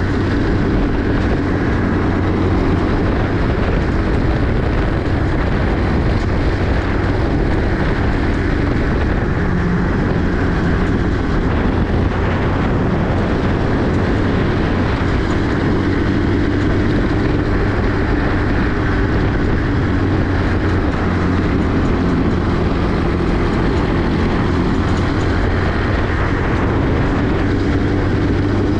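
Small 50cc four-wheel buggy engine running steadily under way, with a constant low hum whose pitch shifts a little as the ride goes on, over a haze of wind and road noise.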